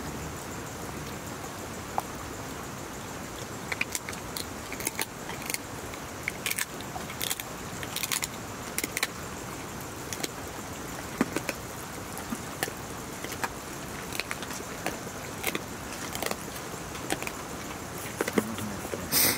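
Light metallic clinks and scrapes of hands eating rice from steel plates and bowls, coming irregularly over a steady background hiss, with a louder clatter near the end.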